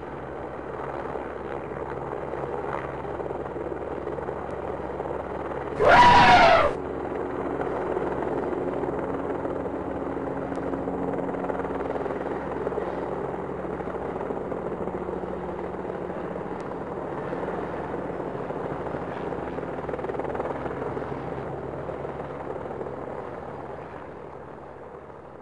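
Helicopter sound effect, a steady rotor drone. About six seconds in, a short, loud sound falling in pitch cuts across it for under a second. The drone fades near the end.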